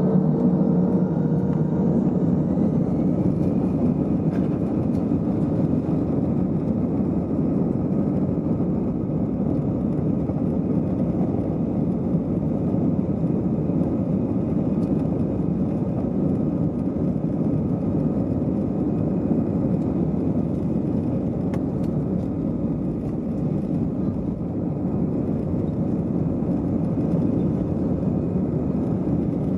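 Airbus A320-214's CFM56 jet engines spooling up with a rising whine over the first few seconds, then running steadily at takeoff thrust with a broad rumble, heard from inside the cabin during the takeoff roll.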